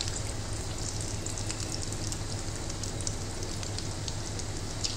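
Samosas deep-frying in hot oil: a steady sizzle with many scattered crackles.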